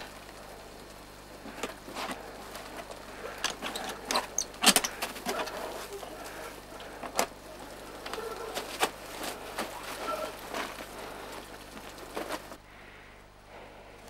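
Irregular sharp clicks, knocks and scrapes of crampons and climbing hardware against rock as a climber moves along a fixed rope; it turns quieter near the end.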